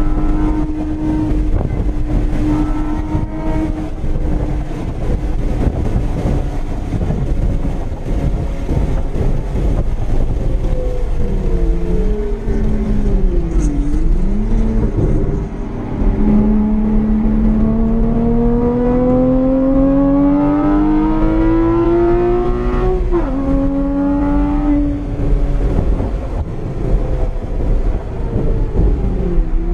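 Porsche 981 Cayman's 2.7-litre flat-six, fitted with an IPD intake plenum and a Soul Performance cat-back exhaust, running hard on track as heard from inside the cabin. The note holds steady, dips and climbs back twice around the middle, then rises in a long pull through a gear and drops suddenly at an upshift about two-thirds in. Road and wind noise run underneath.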